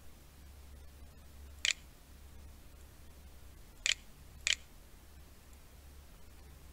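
Computer mouse clicking three times, the first alone and the last two about half a second apart, over a low steady hum.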